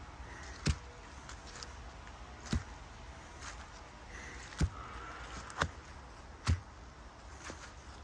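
Footsteps on a path thick with fallen leaves: five separate thuds, unevenly spaced a second or two apart.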